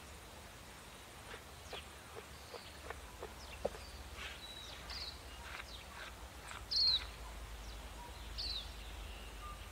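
Birds chirping outdoors in a handful of short, falling calls, the loudest about seven seconds in, over a low steady rumble and a few faint scrapes as slime is wiped off an eel's skin.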